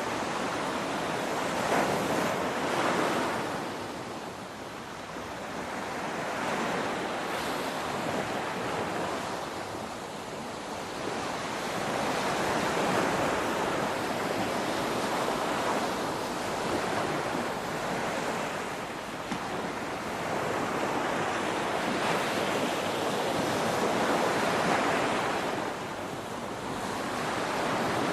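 Ocean waves breaking in a continuous wash of surf noise that swells and eases every few seconds.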